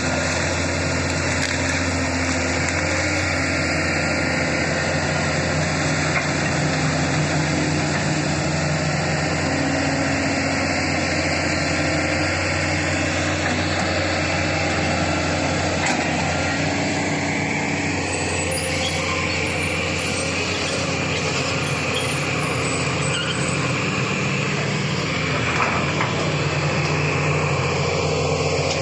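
Excavator's diesel engine running steadily, its note shifting now and then as it works.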